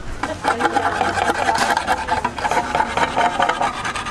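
Can opener cutting around the rim of a large catering-size tin can: a continuous rasping, grinding metal-on-metal sound that eases off near the end.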